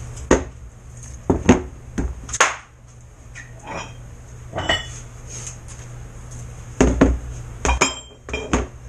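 Cast-iron barbell weight plates being picked up and set down on a plywood boat hull bottom: a string of separate metal clanks and knocks, spaced irregularly over several seconds.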